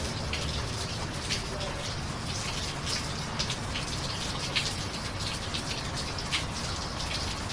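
Steady rain with frequent sharp drips striking hard surfaces, over a low steady rumble.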